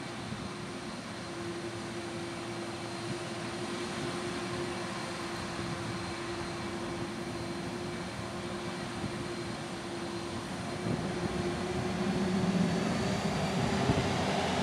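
Airbus A330's twin jet engines running on the runway with a steady hum and a high whine, growing louder over the last few seconds as they spool up for the takeoff roll.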